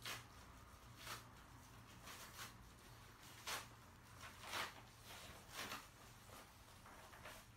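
Two papillon dogs eating kibble from their bowls: faint, short crunching and bowl-scraping sounds at irregular intervals, roughly one a second.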